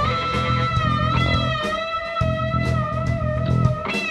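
Live rock-blues band jamming: an electric guitar holds a long sustained lead note over bass guitar and a drum kit keeping a steady beat. The guitar moves to a new note near the end.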